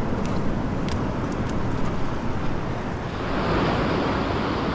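Ocean surf washing over a rocky shore, with wind rumbling on the microphone and a few faint clicks early on. About three seconds in, the surf turns louder and hissier.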